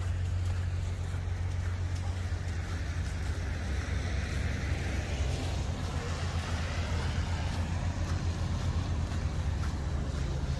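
Outdoor traffic ambience: a steady low engine rumble, with a vehicle passing that swells and fades about halfway through.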